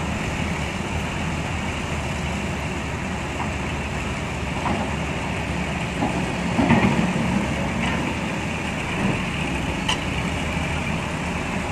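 Heavy diesel engines of a crawler excavator and a loaded dump truck running steadily, with a brief louder clatter about seven seconds in.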